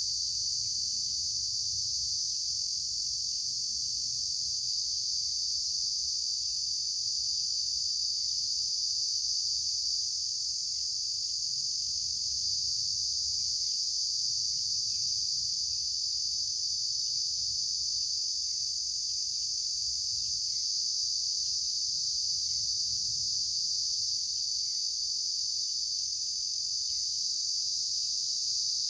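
Steady, high-pitched insect chorus droning without a break, with faint short chirps recurring every second or two and a low rumble beneath.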